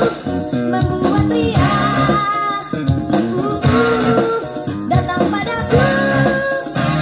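A song with singing and shaker percussion, played from a cassette on a Marantz SD 5000 tape deck through a Victor JA-S31 amplifier and Jordan Acoustic bookshelf speakers.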